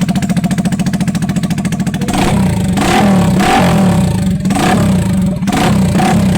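Yamaha R15 single-cylinder motorcycle engine running through its exhaust silencer. It idles in even pulses at about a dozen a second, then from about two seconds in it is revved repeatedly in short throttle blips.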